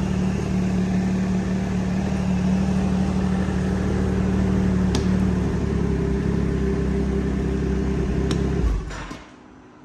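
Ski-Doo snowmobile engine idling steadily through its exhaust, then shut off near the end, its sound dying away within about half a second. Two light clicks are heard during the idle.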